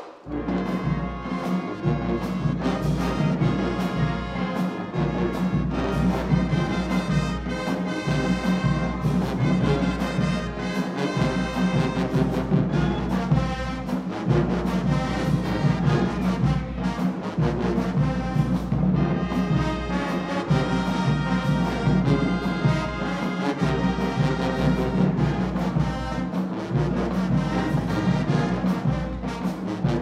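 Marching band playing at full volume: sousaphones, trombones and trumpets over a steady drum beat, the whole band coming in together at the very start.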